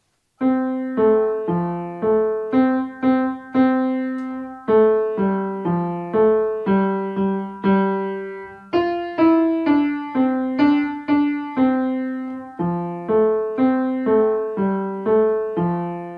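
Upright piano played with both hands at once: a simple tune in single notes, the left hand around F to C and the right hand around C to F, at a steady pulse of four beats to a bar, ending on a held pair of notes that fades away.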